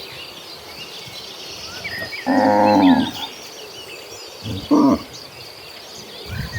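Cattle mooing: one moo about two seconds in and a shorter one near five seconds, over a steady high insect drone and chirping birds.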